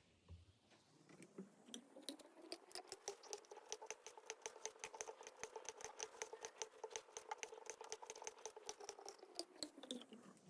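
Play-Doh being kneaded and squished by hand, giving a quick, even run of soft sticky clicks, about five or six a second. A faint tone sits underneath, rising at the start and falling near the end.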